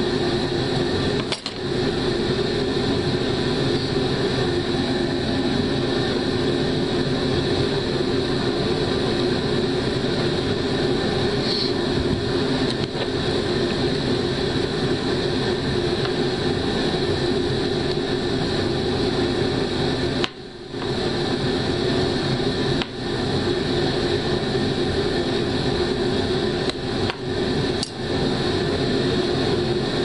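A steady, loud mechanical drone, like a fan or motor running, that cuts out briefly a few times.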